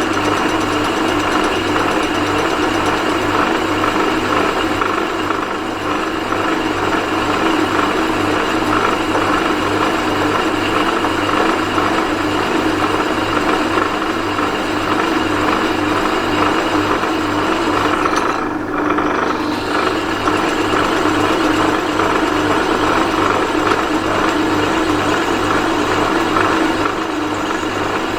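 Metal lathe running steadily, its motor and gearing giving a constant hum with an even low pulsing rattle.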